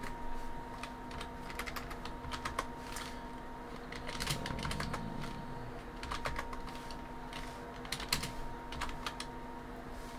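Typing on a computer keyboard: irregular runs of keystrokes entering terminal commands, with short pauses between runs. A faint steady hum lies beneath.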